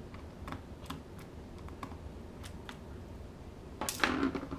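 Scattered light clicks and taps from a small screw and screwdriver working against a laptop's bottom cover, as a screw that is not quite aligned is tried again. A louder, brief burst of scraping noise comes about four seconds in.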